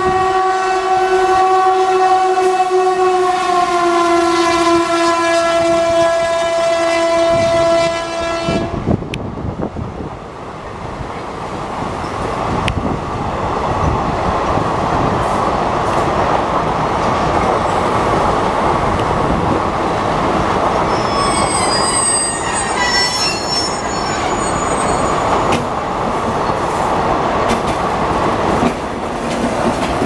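WAP-class electric locomotive's air horn sounding one long blast that drops slightly in pitch and cuts off about nine seconds in. Then the passenger coaches roll past with steady wheel rumble and clickety-clack, with a brief high wheel squeal on the curve about two-thirds through.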